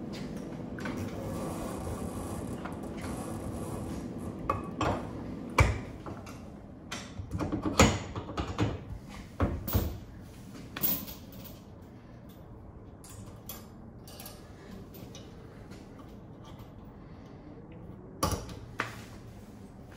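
Metal clicks and clanks from a camping trailer's coupler and hitch hardware being handled, a scattered series of sharp knocks with the loudest around the middle and another pair near the end.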